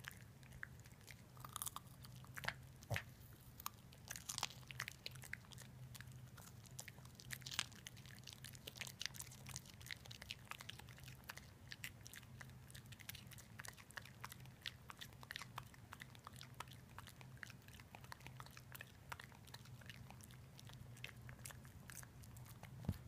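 A Boston terrier puppy crunching and chewing a raw baby carrot, in many sharp, irregular bites and crunches, over a steady low hum.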